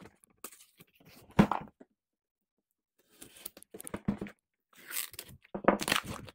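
A knife slicing through packing tape on a cardboard shipping box, in short scraping, tearing strokes, with one sharp knock about a second and a half in. After a short pause the cutting and tearing go on, as the taped boxes are pulled apart near the end.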